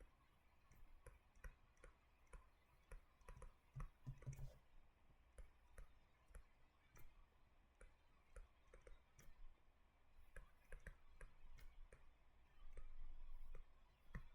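Faint, irregular clicking, about two to three small clicks a second, with a soft low bump about four seconds in.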